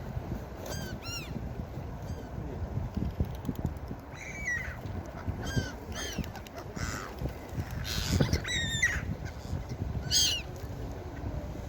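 Seagulls calling: a scattered series of short, harsh, downward-arching cries, some in quick pairs, the loudest a little past the middle. A steady low rumble runs underneath.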